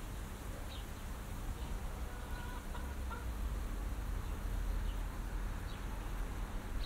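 A distant hen clucking briefly, about two to three seconds in. Short faint bird chirps come about once a second over a steady low rumble.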